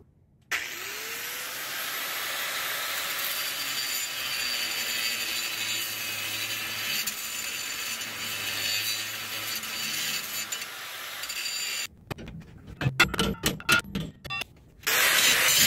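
An angle grinder spins up about half a second in and grinds steadily through the steel rivet of a leaf-spring retainer clip. It stops, and a run of sharp claw-hammer blows on the clip follows. The grinder starts again near the end.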